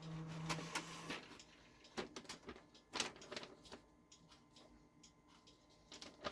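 A Brother HL-2240 laser printer's motor hums for about a second and then stops, followed by a few separate sharp clicks. The printer has halted mid-job, which the owner puts down to a missing roller piece.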